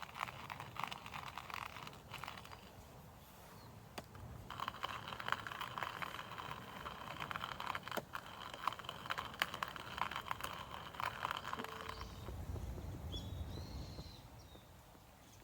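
Dense crackling and sizzling from a cooking fire, full of small pops. It comes in two stretches with a short break about three and a half seconds in, then gives way to a low rumble near the end.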